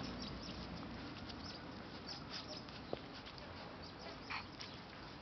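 Husky puppies making faint, scattered little squeaks and scuffling patter.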